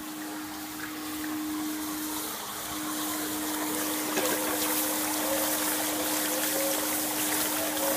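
Hot steel anvil being quenched in water: a steady rushing, sizzling hiss that grows louder, with a thin whistle-like tone joining about halfway and slowly rising.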